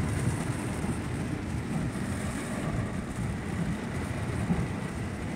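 Steady rumble and hiss inside a moving car driving on a wet road in heavy rain, with tyre and road noise low down and rain and spray hissing above it.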